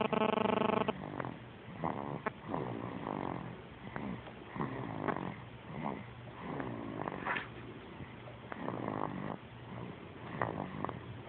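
Snoring, one snoring breath every second or two. It is preceded in the first second by a brief, louder, steady pitched tone.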